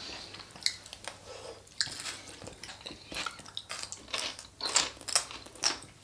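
Close-miked chewing and biting of Greek salad: fresh vegetables crunching in the mouth in short, irregular crunches, with forks now and then clicking against the plate.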